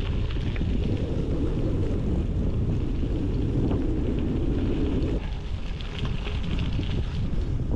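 Wind buffeting the camera microphone of a bicycle riding into a headwind, a dense low rumble that eases slightly about five seconds in, with the tyres crunching faintly over a gravel track.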